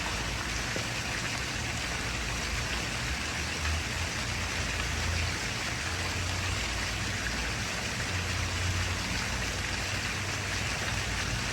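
Steady rush of splashing, running water at a swimming pool, with a low hum underneath.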